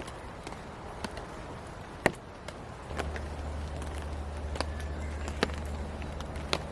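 Scattered, irregular drops of rain tapping on a camping tarp, one louder tap about two seconds in. A steady low hum comes in about three seconds in.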